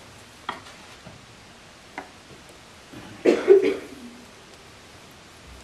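A person coughing, two or three quick coughs about three seconds in, after a couple of light clicks.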